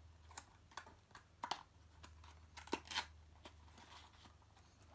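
Light clicks and rustles of a small white cardboard jewellery box and its packaging being handled and opened by hand. There are about eight short, irregular taps, the sharpest around a second and a half and three seconds in.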